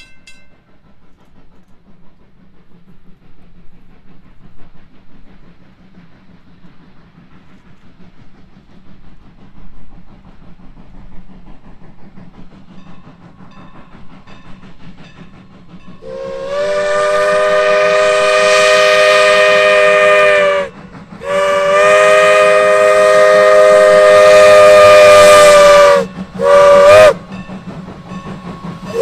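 Norfolk & Western #475's steam whistle, a chord of several tones, blowing two long blasts and then a short one as the 4-8-0 steam locomotive approaches a grade crossing, the standard crossing signal. For the first sixteen seconds there is only faint background sound before the first blast.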